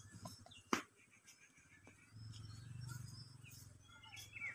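Small birds chirping faintly, with one sharp click about a second in and a low rumble during the last two seconds.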